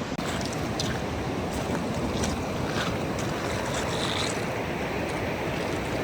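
Steady rushing of ocean surf and wind, with a few faint high ticks in the first few seconds.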